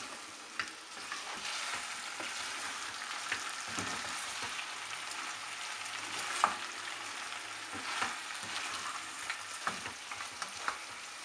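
Mutton pieces frying in a pot, a steady sizzle, with scattered scrapes and knocks of a wooden spoon stirring them against the pan.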